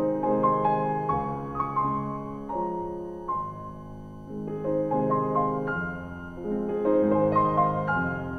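Background music: a slow, gentle piano piece of held notes and chords.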